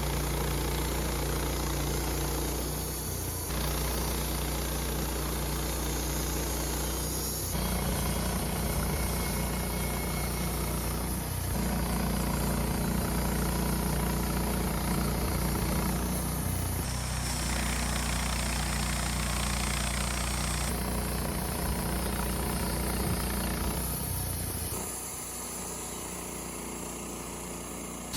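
Wood-Mizer LT15 bandsaw sawmill running steadily while milling a Ponderosa pine log. Its tone and loudness change abruptly every few seconds, and it is quieter for the last few seconds.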